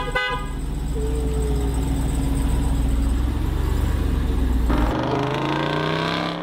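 Jeep Wrangler Rubicon 392's 6.4-litre HEMI V8 running with a steady low rumble, then revving up with a rising pitch about five seconds in.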